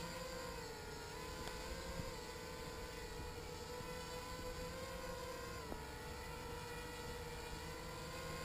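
HK 250 mini quadcopter's motors and propellers humming steadily in flight, the pitch wavering slightly up and down as the throttle changes.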